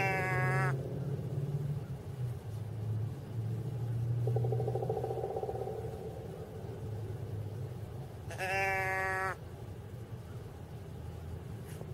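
Two doe bleats from a hand-held deer bleat call, each a single flat, steady-pitched bleat about a second long, one at the start and one about eight and a half seconds in. A fainter buzzy note sounds between them, about four seconds in.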